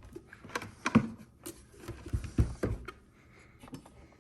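A handful of knocks and clicks from equipment being handled, the loudest about a second in, with a cluster of them a little past the middle.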